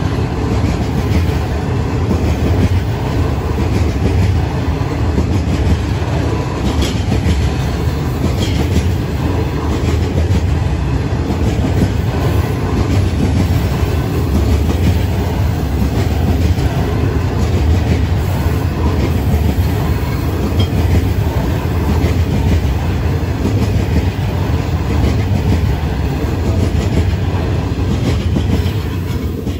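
A freight train of hopper wagons rolls past close by: a loud, steady rumble of steel wheels on the rails, with a few faint clicks.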